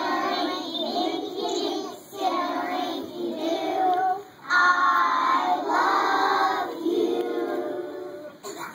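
A group of preschool children singing a song together in short phrases.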